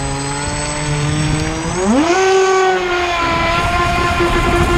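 AquaCraft MiniMono RC speed boat's electric motor, run on an 11.1 V LiPo pack, whining steadily as the boat runs across the water. About two seconds in the throttle opens: the whine rises sharply in pitch and holds high.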